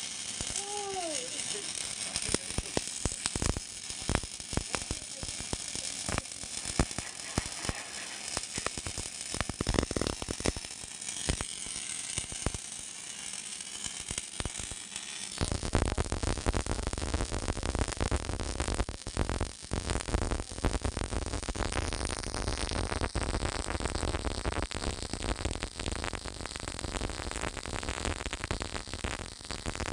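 Electric arc welding, crackling and sizzling with dense sharp ticks. About halfway through, it turns louder and fuller, with a low rumble underneath.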